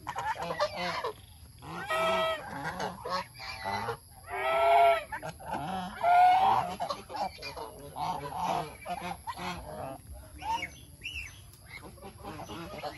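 A flock of domestic geese honking and calling back and forth. Loud, drawn-out honks come about two, five and six seconds in, with shorter, softer calls between.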